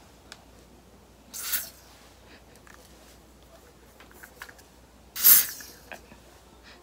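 Fragrance mist spray bottle spraying twice in short hissing puffs, the second about four seconds after the first and louder, with a few faint plastic clicks from handling the bottle.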